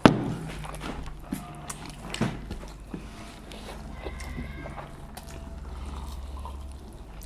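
Sharp knocks and clicks of a meal being eaten, as of dishes and food being handled at the table. The loudest comes right at the start and another about two seconds in, over a low steady hum.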